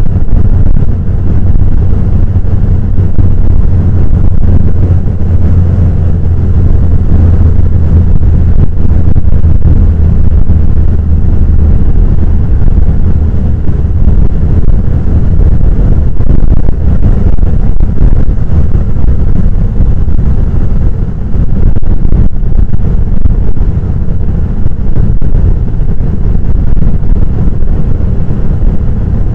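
Heavy surf breaking on the shore, a loud, steady low rumble that never lets up.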